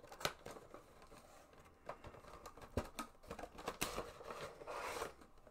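Faint handling of a Funko Pop box as the vinyl figure is taken out: scattered clicks and taps of cardboard and plastic, with a longer rustle about four seconds in.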